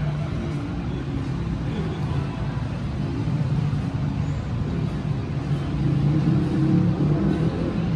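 Steady low rumble and hum of a vehicle, growing louder about six seconds in.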